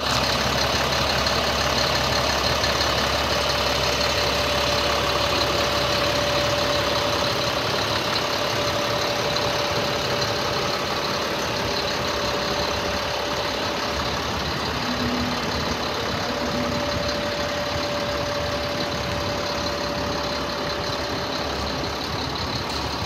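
A 2005 GMC C7500 box truck's engine idling steadily, with a faint steady whine over the rumble. It grows slightly fainter toward the end.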